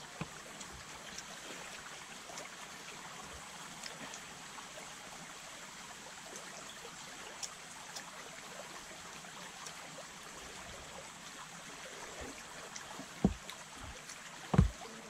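Shallow stream flowing with a steady rushing sound, with scattered faint clicks and two dull thumps near the end.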